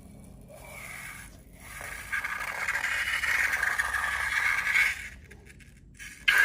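Slime being scraped and stirred in a container: rough scraping starts about two seconds in, runs for about three seconds, stops, and starts again near the end.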